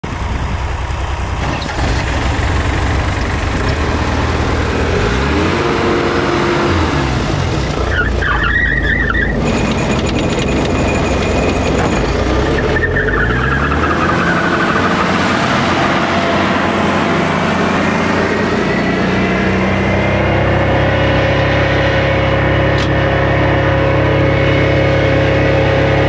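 Vermeer BC1000XL wood chipper's engine running, its speed rising and falling several times, with a whine that falls in pitch about halfway through, then running steadily.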